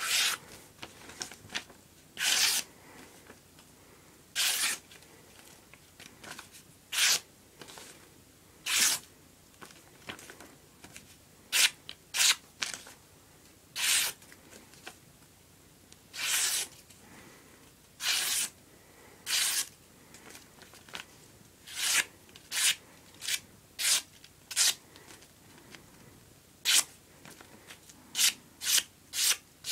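Cold Steel Voyager folding knife slicing through a sheet of paper in a paper-cutting sharpness test, about twenty cuts, each a short hiss of blade through paper. The cuts are spaced a couple of seconds apart at first and come quicker in the last third.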